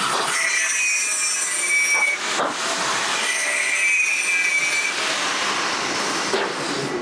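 Hand tool scraping or grinding the edge of a small metal exhaust pie-cut segment: a steady hiss with a high squeal that comes and goes, briefly broken about two and a half seconds in.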